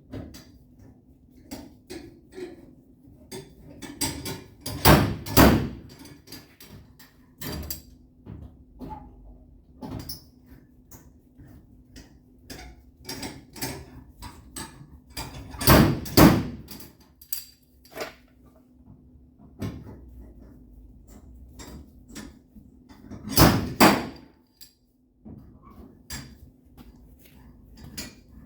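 Hand tools knocking on the sheet metal of a pickup's quarter panel: many light taps and clicks, with three louder bursts of heavier strikes, over a steady low hum.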